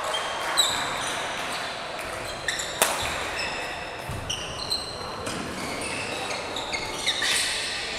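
Badminton rally: sharp racket strikes on the shuttlecock, the loudest about three seconds in, among many short, high sneaker squeaks on the court floor.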